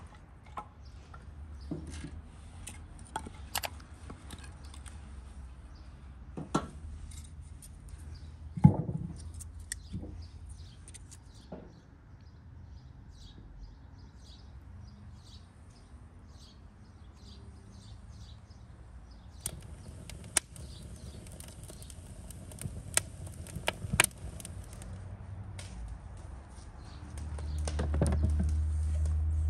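Split firewood knocking and clacking as pieces are handled and set down, a scattering of sharp knocks through the first dozen seconds. Small birds then chirp repeatedly. A low rumble near the end is the loudest part.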